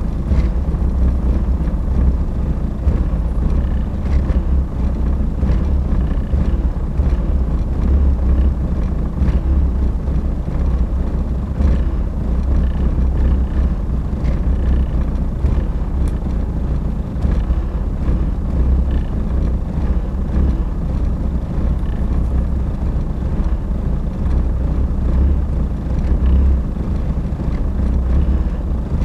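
Mercedes-Benz W202 C220 four-cylinder diesel engine running steadily with a low rumble.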